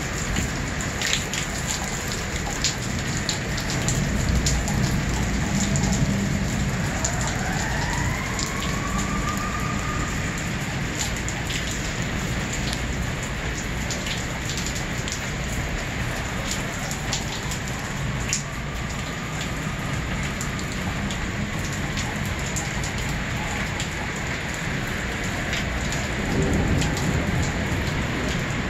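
Heavy thunderstorm rain pouring steadily, with close drops ticking sharply on a hard surface. A low rumble of thunder swells twice, a few seconds in and near the end.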